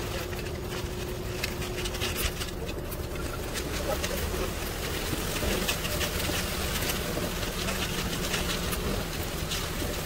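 Concrete mixer truck's diesel engine running steadily while it turns the drum and discharges concrete down the chute, with scattered short clicks and scrapes throughout.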